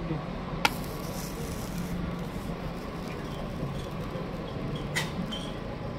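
Parathas being laid and handled on a large flat griddle (tawa): a sharp tap a little over half a second in, followed by a short hiss, and another tap near the end, over a steady background hum.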